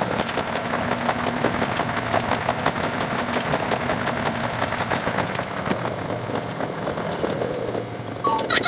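Running noise of a local train played back at ten times speed: wheel and track sounds squeezed into a dense, rapid crackle of clicks over a steady hiss.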